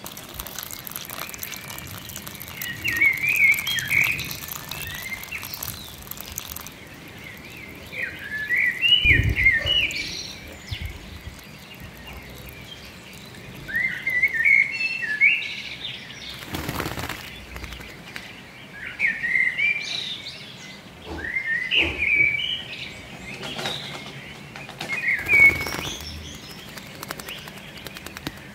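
A Eurasian blackbird singing short, fluty, warbled phrases that end in a twitter, repeated every few seconds. Three times there is a short splashing rustle from a bird bathing in a puddle.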